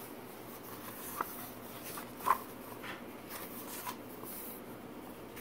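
Pages of a hardcover book being turned and handled: soft paper rustling with a few short sharp page flicks, the loudest a little over two seconds in.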